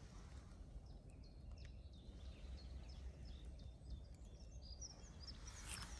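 Quiet forest ambience: a low steady rumble with a scatter of faint, short bird chirps through the middle.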